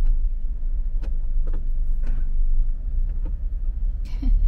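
Steady low rumble of a slow-moving car, with a few faint ticks.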